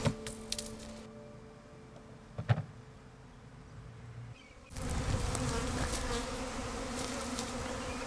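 Honeybees buzzing in a steady hum, with one sharp knock about two and a half seconds in. The buzzing becomes louder and denser about five seconds in.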